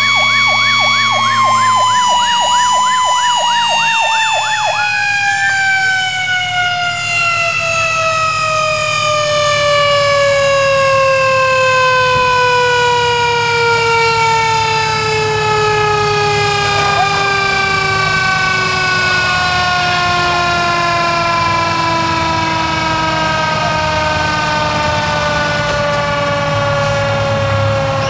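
Fire engine sirens: a mechanical siren winds down, its pitch falling slowly and steadily after about a second, while an electronic siren yelps rapidly, about three sweeps a second, and cuts off about five seconds in. The truck's engine idles underneath.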